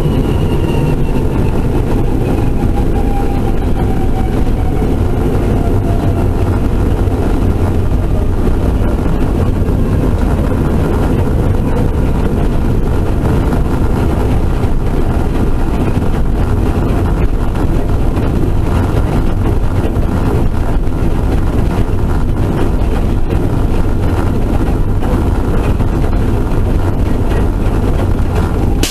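Turbocharged race car running hard in a steady, loud blend of engine and rushing noise, with a thin whine falling in pitch over the first several seconds.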